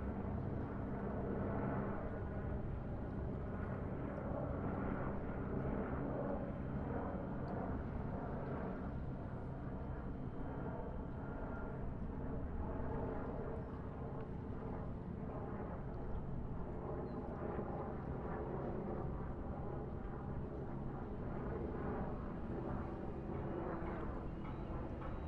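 Distant road traffic: a steady, continuous rumble of many vehicles' engines and tyres blending together, with engine hums drifting in and out.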